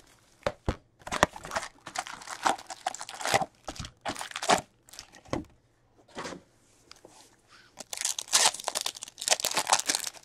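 Plastic shrink wrap crinkling and tearing as a sealed hockey card hobby box is unwrapped and opened, in a quick run of rustles and rips. After a quieter stretch, a foil card pack is torn open near the end.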